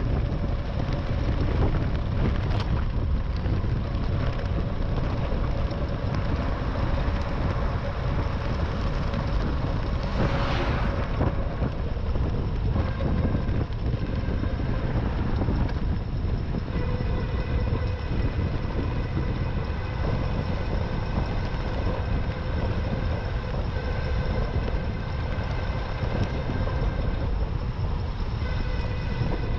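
Wind buffeting the microphone of a camera on a moving e-bike, with a steady rumble and hiss. Thin whining tones from the bike's drive run underneath and shift to a new pitch about two-thirds of the way through. There is a brief swell of hiss about ten seconds in.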